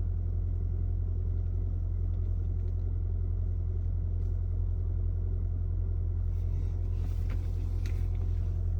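2019 VW Golf R's turbocharged 2.0-litre four-cylinder idling steadily, heard from inside the cabin as a low, even hum. A few light clicks and rustles come near the end.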